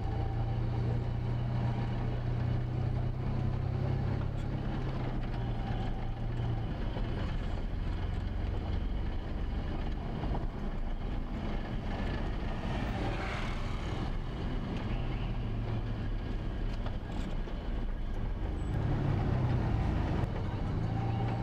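A vehicle's engine running steadily as it drives, with road and traffic noise: a low engine hum that fades about six seconds in and comes back strongly near the end.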